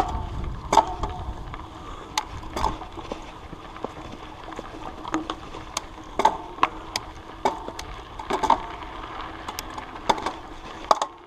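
Mountain bike rolling over a rough trail, its chain and drivetrain rattling, with irregular sharp clicks and knocks from the bike.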